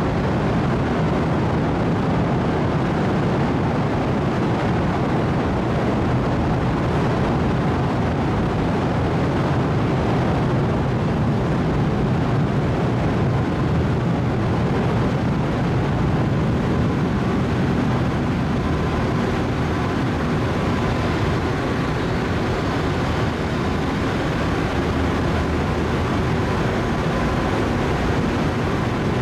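Loud, steady machinery drone inside a car ferry's enclosed vehicle deck while the ship is still under way: engine and ventilation noise, deep and unbroken, with a faint steady tone joining in near the end.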